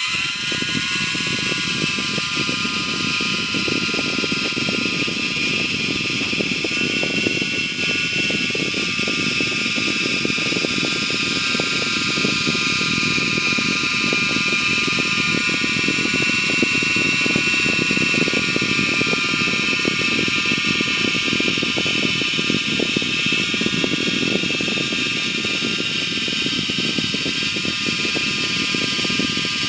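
Amewi Firestorm Pro micro RC helicopter's electric motors whining and its rotor whirring steadily. The motor spins up right at the start, then holds a steady pitch that wavers slightly.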